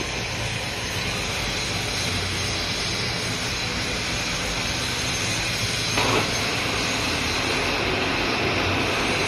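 Lathe running with its coolant flowing, a steady mechanical hum and hiss. About six seconds in there is a short clunk as the spindle engages and the four-jaw chuck starts turning, and a slightly higher, steadier whirr follows.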